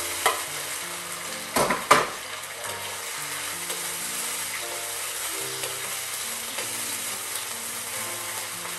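Pieces of flathead fish frying in olive oil in a wok, a steady sizzle, with a few sharp clicks of the utensil against the wok about one and a half to two seconds in. Faint background music with held notes underneath.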